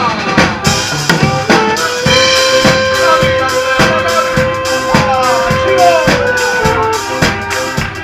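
Live southern Italian tarantella band playing. A drum kit keeps a steady beat under a long held reed note and weaving melody lines from button accordion and saxophone.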